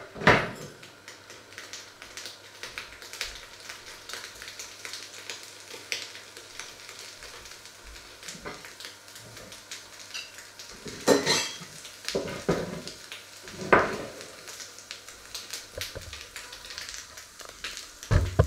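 Metal pots, lids and utensils clinking and scraping, with a few louder clatters past the middle and again near the end, over a faint steady crackle of food frying on the hob.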